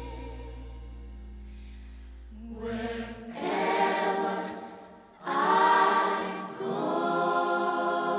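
Gospel choir singing sustained chords. The chords swell in, with strong new entries about three and five seconds in, and a low held bass note underneath cuts off about three seconds in.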